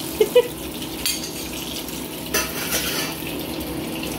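Hot oil sizzling in a frying pan once the fried fish has been lifted out, with two quick metal clinks of tongs against the pan near the start. The sizzle flares up briefly a little after halfway through.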